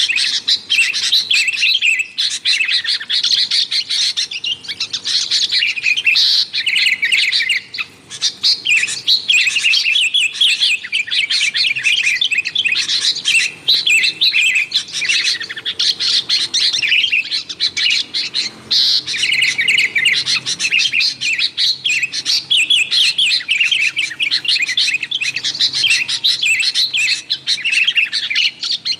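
Sooty-headed bulbuls (kutilang) chattering busily, a dense run of rapid, bubbly chirps with only brief pauses. This is the noisy 'ribut' calling used as a lure to draw in wild bulbuls.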